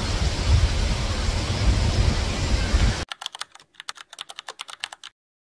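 Steady background noise with a low rumble that cuts off abruptly about three seconds in. A rapid run of sharp clicks, about ten a second, follows and stops about five seconds in.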